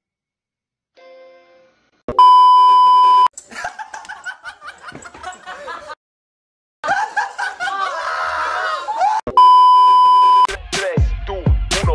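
Two loud, steady, high-pitched test-tone beeps, each about a second long and about seven seconds apart, the second sounding over a TV colour-bar test pattern. Voices talk, shout and laugh between them.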